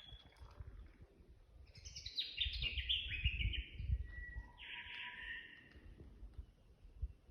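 A wild bird singing: a quick run of notes that step down in pitch over about two seconds, then a lower note and a brief harsher phrase, with a faint low rumble underneath.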